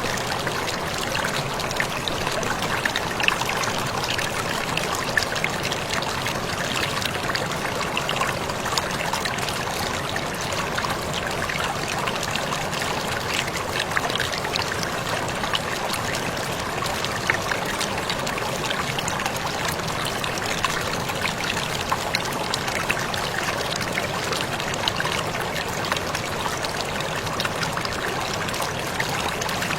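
Waterfall splashing steadily, falling water with many small drips and splashes through it, the level even throughout.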